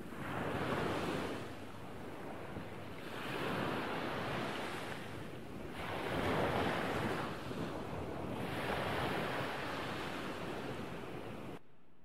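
Ambient soundscape of surf-like rushing noise, swelling and ebbing in slow waves about every three seconds, with no tune. It cuts off suddenly near the end.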